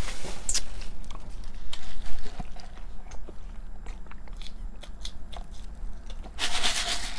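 Close-up mouth sounds of eating: biting and chewing french fries, with small wet clicks. A short louder noisy rush comes near the end.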